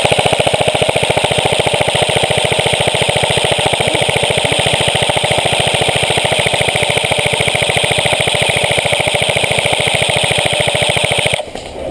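Airsoft electric gun firing one long full-auto burst of rapid, evenly spaced shots, which stops abruptly near the end. It is suppressive fire that burns through a high-capacity magazine.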